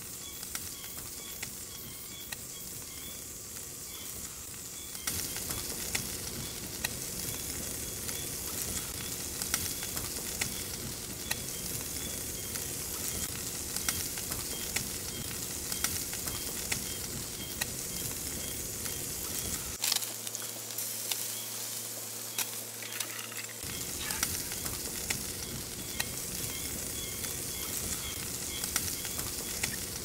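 Food frying in a pan, a steady sizzle with frequent small pops, getting louder about five seconds in.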